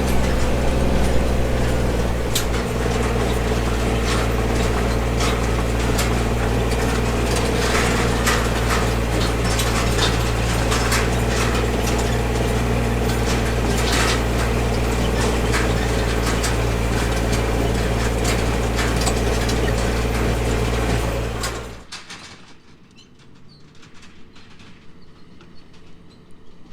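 Tractor engine running steadily with a square baler and bale accumulator working behind it, giving frequent irregular mechanical clanks and clicks. About twenty-two seconds in, the sound drops abruptly to a much quieter rattle.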